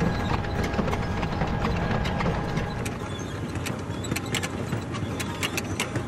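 Potato planter running: a steady low mechanical rumble with a quick, irregular clicking and clattering from its feed belts and the seed potatoes moving along them.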